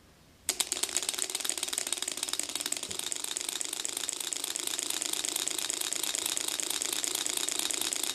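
Gatling six-cylinder Stirling (hot-air) engine, heated by an alcohol burner and started by hand about half a second in, then running with a fast, steady mechanical clicking rattle.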